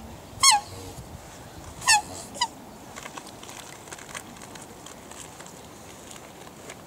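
Black swans calling: three short, high, wavering calls in the first two and a half seconds, the last one fainter, then only faint background.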